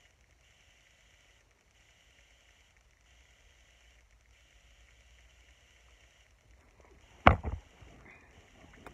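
Faint room tone, then about seven seconds in a single loud, sharp thump with two smaller knocks after it: the recording phone being bumped and handled as it is moved.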